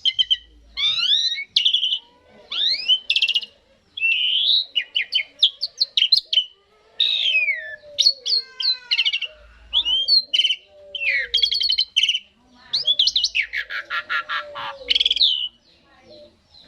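Asian pied starling (jalak suren) singing: a fast string of varied whistles, rising and falling slurred notes and rattling chatter, delivered in bursts with short gaps, stopping shortly before the end.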